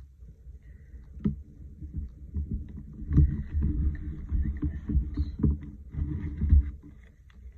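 Hands handling paper collage pieces on a desktop: paper rustling and crackling, with knocks and rubbing as a torn piece is pressed down onto the card. A sharp click about a second in, then steady rubbing and thumping for several seconds, dying away near the end.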